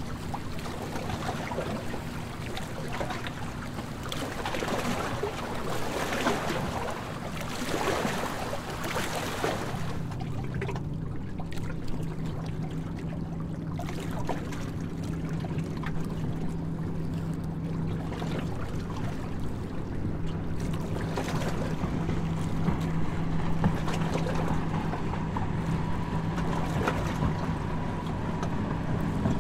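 Harbour tour boat's engine running with a steady low drone, with wind and water rushing over it. The rushing dies down about a third of the way in, leaving the engine hum.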